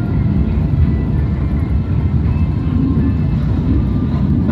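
A pack of BriSCA F1 stock car V8 engines idling together while the cars wait to be lined up, a steady low rumble.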